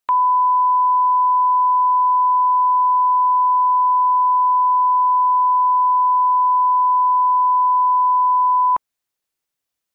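Steady 1 kHz sine-wave reference tone, the line-up tone that runs with colour bars at the head of a broadcast commercial tape for setting audio levels. It stops abruptly almost nine seconds in.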